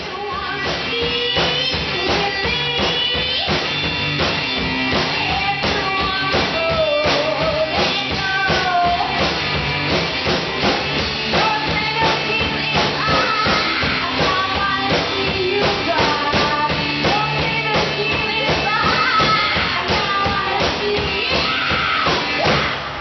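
Live rock music: electric guitar and a drum kit played as a duo, with a woman singing over them.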